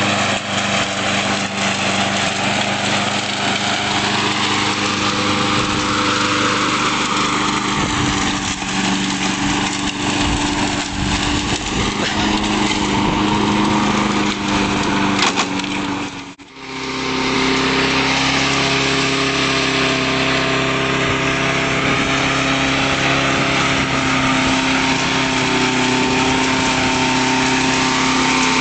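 Small lawnmower engine running on ethanol, a steady buzzing note with knocks and rattles over roughly the first half. About sixteen seconds in the sound drops out for a moment, then the engine runs on at a steadier, slightly different pitch.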